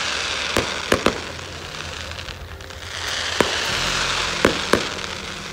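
Aerial fireworks going off: a continuous crackling hiss from glittering bursts, with sharp bangs, three in quick succession about a second in and three more between about three and five seconds in.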